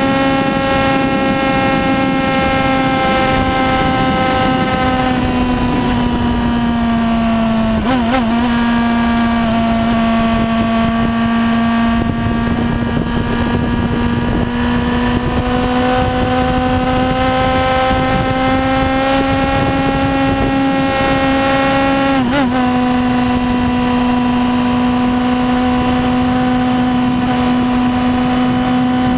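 A Yamaha YZF-R1's 1000 cc inline-four engine running hard at highway speed, with wind rushing over the microphone. Its steady note sags slowly, then climbs again, with brief breaks in the tone about 8 and 22 seconds in.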